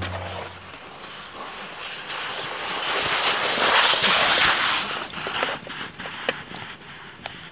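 Boots sliding and scraping down a firm snowfield as a climber glissades, a rough hiss that swells as he passes close, about three to four seconds in, then fades.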